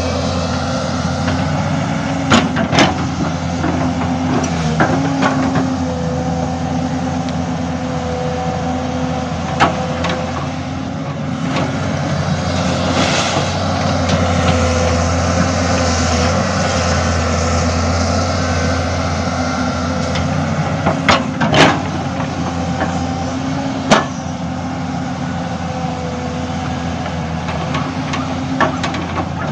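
Hydraulic excavator's diesel engine running steadily as the machine works, with several sharp knocks from the working gear, the loudest a little over two-thirds of the way through.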